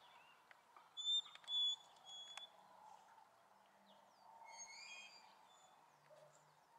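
Birds calling: a few short, clear high notes about a second in, then a brief chattering call near the middle, over a faint steady background hum.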